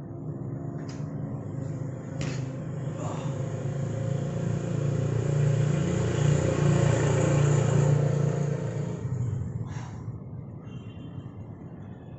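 A motor vehicle passing by: its low engine hum and road noise grow to a peak about halfway through, then fade away. A few sharp clicks sound near the start and near the end.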